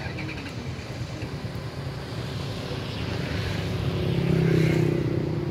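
A passing engine: a steady hum that grows louder through the second half and peaks near the end.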